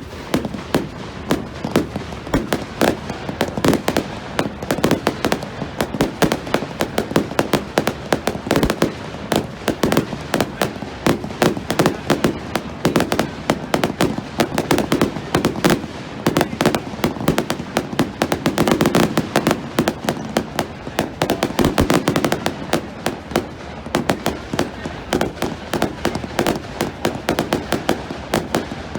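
Fireworks going off in a dense, continuous barrage: many sharp cracks and pops a second, with no pause.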